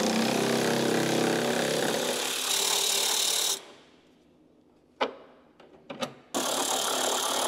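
Handheld power tool running in two long bursts: a steady run of about three and a half seconds that turns brighter and higher about two and a half seconds in, a few light clicks, then a second run starting near the end.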